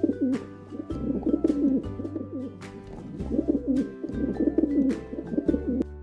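Pigeon cooing in several bouts of low, warbling coos, over background music.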